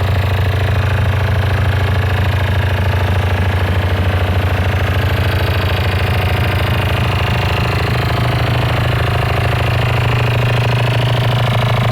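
Very loud DJ sound-system speakers playing heavy, distorted bass that overloads the recording into a steady, rattling drone.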